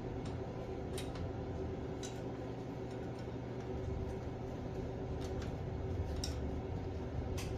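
About five light metallic clicks, a second or more apart, as rocker arms and pushrods are seated by hand on a Farmall 450 cylinder head, over a steady low hum.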